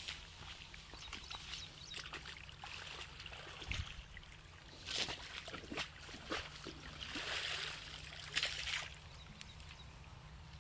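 Irrigation water trickling through a field channel while a spade and hands scrape and slap wet mud to close the channel's opening into the crop, with rustling of the stalks. Several short sharp scrapes and slaps stand out, the loudest about halfway in and again near the end.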